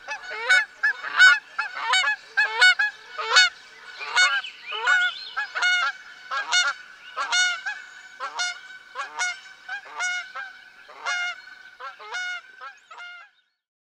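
A flock of Canada geese honking: many short overlapping honks, several a second, growing fainter and then cutting off abruptly near the end.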